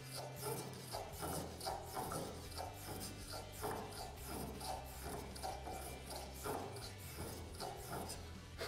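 Homemade hand plane, an old blade set in a metal pipe body, shaving a thin wooden strip in quick repeated strokes, about two to three a second, each a short scrape.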